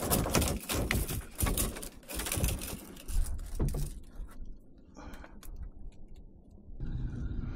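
Handling noise in a kayak cockpit: a quick run of knocks, clicks and rustles as a small mangrove snapper is handled and the gear moved, then quieter with a few scattered clicks.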